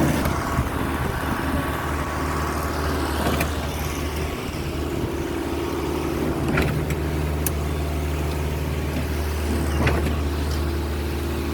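Heavy engine of ready-mix concrete machinery running steadily at a constant speed, with a few short sharp knocks.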